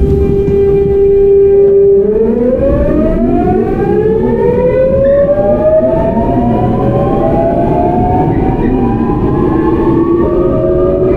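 GEC Alsthom GTO-VVVF inverter and traction motors of a Seoul Metro 8000-series train accelerating. A steady whine holds for about two seconds, then several tones rise in pitch as the train gathers speed, over the train's running noise.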